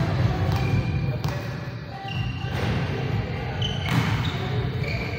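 Basketball bouncing a few times on an indoor gym court, the bounces spaced irregularly, over a steady low hum of the hall.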